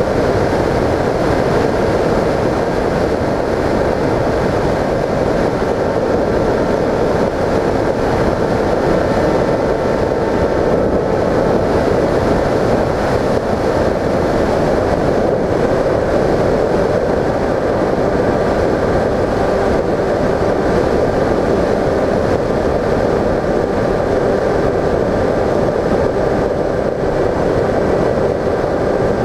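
Bixler 1.1 RC plane's stock electric motor and propeller running in flight, a steady whine under a dense rush of wind over the camera mounted on the airframe.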